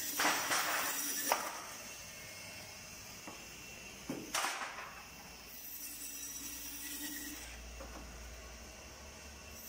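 Meat-halving machine running with a faint steady hum, and a noisy burst lasting about a second near the start as a pork trotter passes through its blade, with a shorter burst about four seconds in.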